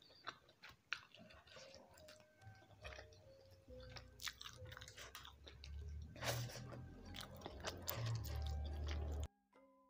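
Close-miked eating by hand: chewing with many short wet mouth clicks and smacks, while fried tilapia and rice are picked apart and eaten. A low hum comes in about four seconds in and cuts off suddenly near the end.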